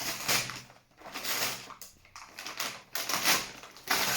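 Packaging being torn open by hand: several quick rips and crinkles of paper or wrapping.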